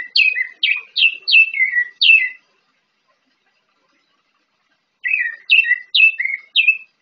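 Orange-headed thrush (anis merah) singing a string of quick whistled notes, each slurring downward, about two and a half a second. It pauses for a few seconds after the first run, then starts a second run of five notes about five seconds in.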